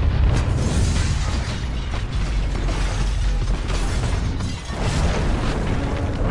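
A chain of film explosions as a building is blown apart: deep booms, one after another, with crackling bangs of flying debris and breaking windows, a short lull, then a fresh blast near the end.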